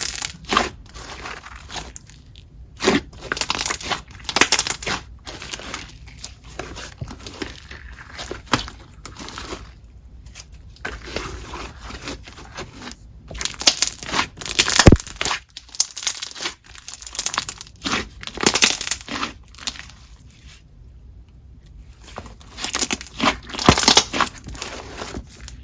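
Glossy, semi-stretchy slime worked by hand, squished, poked and stretched, giving wet clicks and crackles and repeated sharp bubble pops. The loudest pop comes about halfway through.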